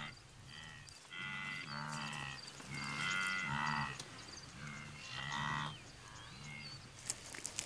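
A herd of wildebeest calling: about eight low, moo-like calls, each under a second, some overlapping from different animals.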